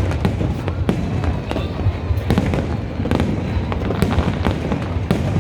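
Aerial fireworks going off in rapid, irregular succession: many sharp cracks and bangs over a continuous low rumble of booms.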